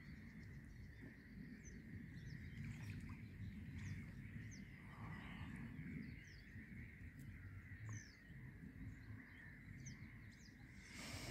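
Faint bird chirps, short high falling notes scattered irregularly, over a low steady outdoor rumble.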